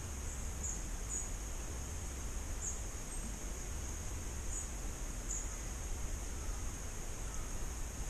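Riverside ambience: a steady high-pitched insect drone with a few short, faint bird chirps above it, over a low rumble.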